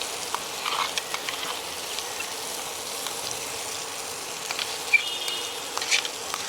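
Ginger, raw turmeric and onion paste frying in hot oil in a pan: a steady sizzle with scattered crackles. A few sharp clicks and a short squeak of a spoon against the pan as it is stirred, clustered about one second in and around five to six seconds in.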